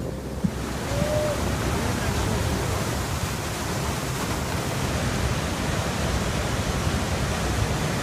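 Steady rush of a foaming flash flood, muddy water surging down a desert wadi and over a canyon drop.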